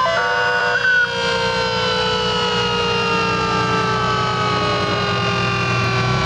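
Fire truck siren: after a few choppy tones in the first second, one long wail falls slowly in pitch, over the low rumble of the passing fire trucks' engines.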